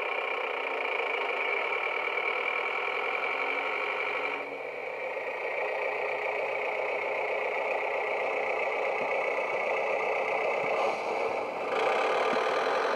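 Recorded diesel railbus engine sound from a Loksound 5 DCC sound decoder, played through the small speaker inside a Heljan railbus model as it moves off and runs along the track. The engine note drops about four and a half seconds in and comes back louder near the end.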